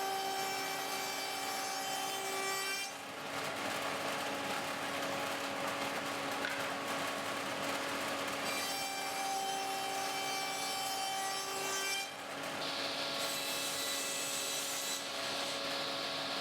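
An electric power tool runs steadily on plywood, a rasping, abrasive noise over a steady motor whine. The sound changes abruptly about three seconds in and again about twelve seconds in.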